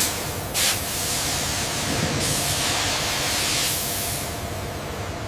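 Hand-held pressurized spray nozzle hissing as it sprays fluid onto a steel part: a steady hiss with a brief surge about half a second in, tailing off near the end.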